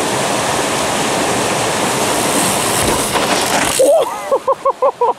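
A steady, loud rushing noise that cuts off abruptly near the end. It is followed by a quick run of short, repeated pitched sounds, about six a second.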